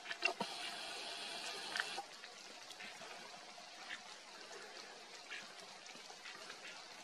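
Faint trickling water, a little louder for the first two seconds, with a few light clicks.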